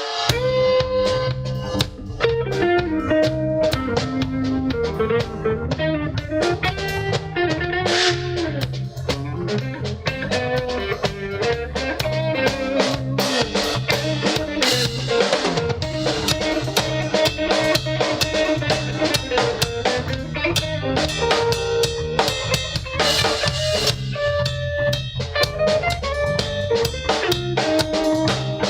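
Instrumental band music: a drum kit keeps a steady beat with bass drum and rimshots under guitar, while a melodic lead line glides up and down.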